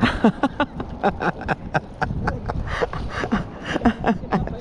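Spinning reel cranked fast to bring in a small fish: a quick, rhythmic run of clicks and short squeaks that starts abruptly as the handle begins to turn.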